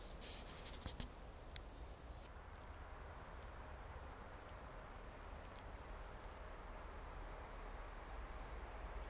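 Quiet pine-forest ambience: a faint steady hiss, with a few faint high chirps of small birds scattered through it and a few light clicks in the first couple of seconds.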